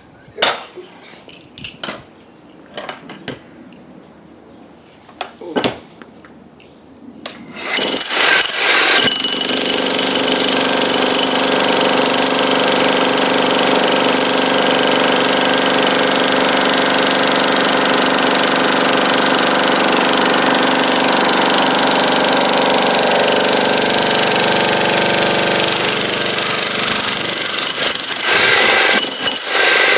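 Heavy jackhammer breaking up a concrete walkway, starting about eight seconds in and then running loud and steady without a break. Before it starts there are a few scattered knocks.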